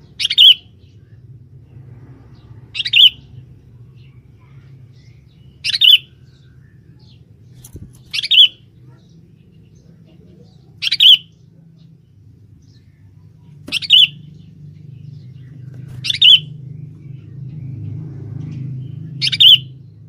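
Sooty-headed bulbul (kutilang) giving short, sharp calls, eight in all, one every two and a half to three seconds, over a faint low background hum.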